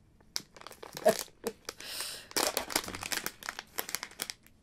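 Plastic snack packet crinkling as it is handled and torn open, with a short tear about two seconds in.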